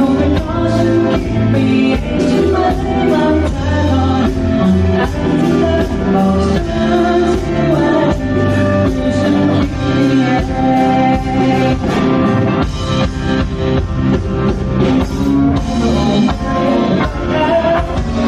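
A live band playing a song with a singer during a sound check.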